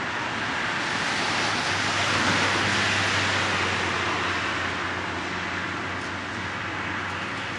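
A motor vehicle passing on the road: tyre and engine noise swells to its loudest about two to three seconds in, then fades away, over a steady low engine hum.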